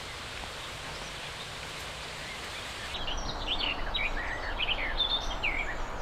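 Steady outdoor background hiss. About three seconds in, songbirds start singing over it, a run of short quick chirps and whistles.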